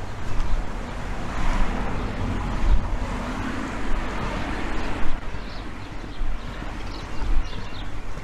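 A car driving past on the road, its tyre and engine noise swelling for a few seconds and then fading away.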